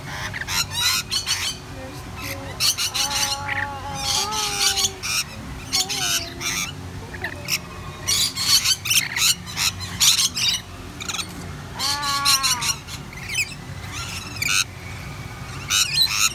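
Rainbow lorikeets screeching, many short high calls in quick clusters with brief pauses between, while they feed from a hand-held cup.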